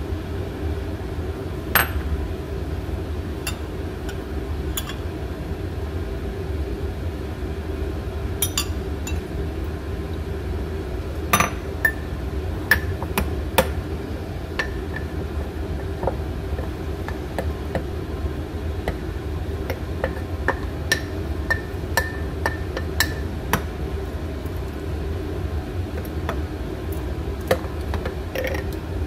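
Metal spoon clinking and scraping against a glass jar and bowl as sourdough starter is fed and stirred, in irregular sharp ticks that come thickest through the middle. Under it runs a steady low hum.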